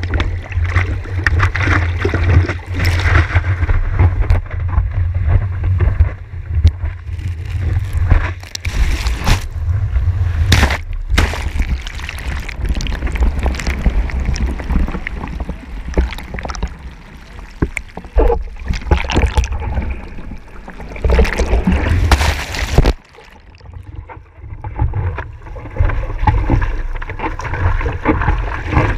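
Sea water splashing and sloshing around an action camera held at the surface as a rider paddles a board through the surf, with a heavy low rumble of water and wind buffeting the camera housing. The sound turns muffled when the camera dips under the water.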